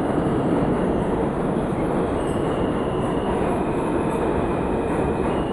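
R160B subway train pulling into the station, a loud steady rumble of wheels on rail. A faint high-pitched wheel squeal joins about two seconds in.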